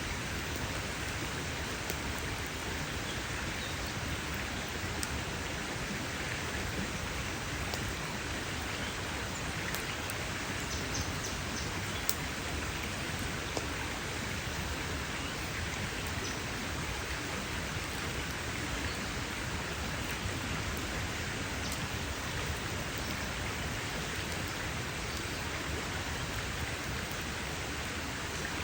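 Campfire crackling: a steady hiss of burning wood with scattered sharp pops, the loudest about twelve seconds in.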